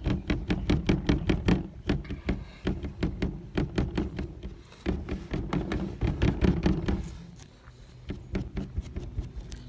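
Rolled-up sock loaded with paint being dabbed rapidly against the painting surface, a quick run of soft taps and thunks several a second that thin out and grow quieter about seven seconds in.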